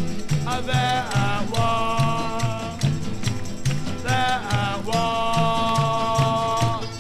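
A 1960s folk-rock song played from a vinyl LP, in a passage without lyrics: a bass line moving in steady steps under guitar and long held notes.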